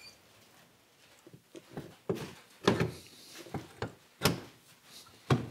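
A string of irregular sharp knocks and clunks, about nine in all, from hands and tools working on the body and seat compartment of a golf cart.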